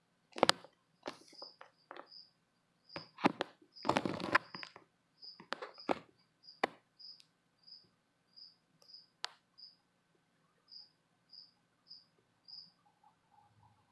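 A cricket chirping: short high chirps about two a second. Over it come loud, sharp clicks and crackles, mostly in the first seven seconds, the loudest a crackling burst about four seconds in.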